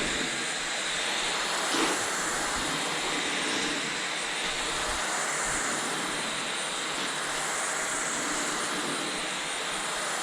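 LG CordZero Kompressor cordless stick vacuum running steadily with its mop nozzle, vacuuming and mopping at the same time. A brief knock about two seconds in.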